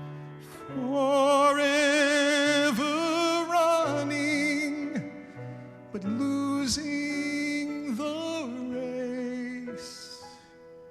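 A solo singer holding long notes with a wide vibrato over sustained instrumental accompaniment, in two main sung phrases with softer accompaniment between them.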